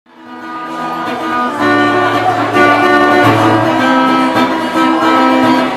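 Acoustic guitar strumming chords as a song intro, fading in over the first second.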